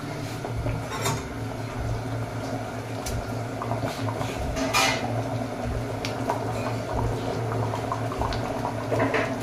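Rajma curry bubbling at the boil in a steel kadai on a gas burner, with a couple of sharp clinks of steel utensils against the pan, about one and about five seconds in.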